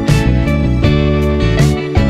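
Background music with a steady beat and plucked guitar strings.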